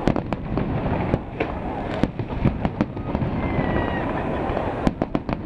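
Fireworks going off: a dense rumble of bangs with many sharp cracks and pops at irregular intervals, and a brief faint whistle about three and a half seconds in.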